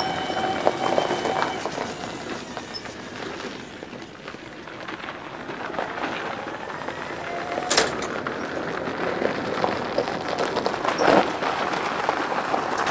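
Electric John Deere 140 lawn tractor, converted to a 48-volt electric transaxle, driving on gravel: tyres crunching, fading as it moves off and growing louder as it comes back, with no engine sound. A steady electric motor whine is heard in the first second or so, and two sharp clicks come about eight and eleven seconds in.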